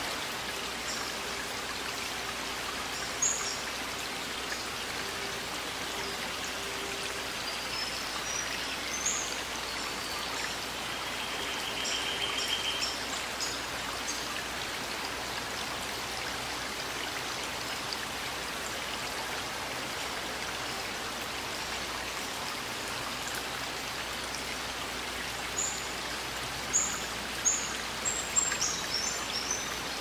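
Steady rush of a forest stream running over small rocky cascades, with songbirds chirping in short high calls over it: a few early, a brief buzzy trill about twelve seconds in, and a quick run of chirps near the end.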